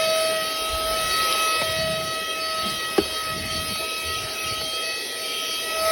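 Mini vacuum cleaner's motor running with a steady high whine. A single sharp click comes about three seconds in.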